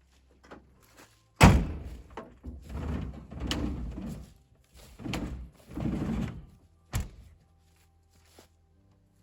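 A loud, heavy thunk, then a few seconds of scraping and rustling, then a second thunk.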